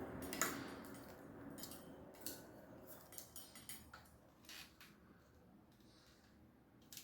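Scattered light clicks and clinks of metal parts being handled and fitted together during assembly, with a sharper click about half a second in and softer ones after.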